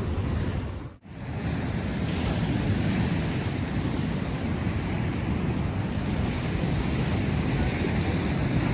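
Wind buffeting the microphone over the wash of surf, a steady rough rumble with a brief dropout about a second in.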